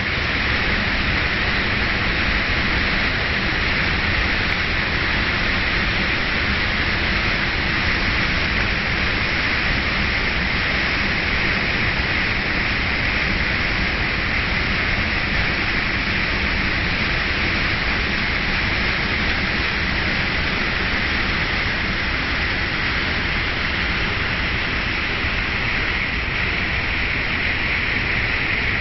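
Waterfall: falling water making a loud, steady, even noise that does not change.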